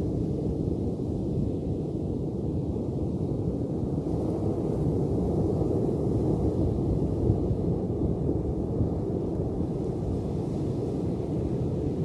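Ocean surf as a steady low rumble of rushing water, swelling slightly in the middle, with no separate wave crashes.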